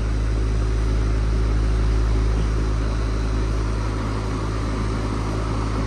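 2021 Carrier central air-conditioner condenser running steadily: a low hum from its LG scroll compressor under the even rush of the condenser fan.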